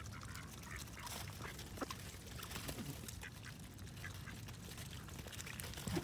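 Canada geese and mallards feeding on grain on icy ground: faint scattered clicks of bills pecking, with a few soft calls.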